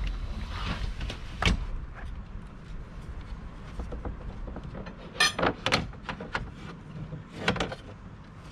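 Canvas cover of a pop-top camper's bed end being pulled into place over the corners, rustling, with a few knocks and clunks from the bed panel: one about a second and a half in, a quick cluster about five seconds in, and another near the end.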